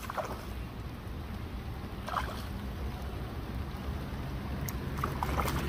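Steady watery hiss of rain falling on the lake and umbrella, with faint splashes from a hooked carp swirling at the surface close to the bank. A few faint clicks come near the end.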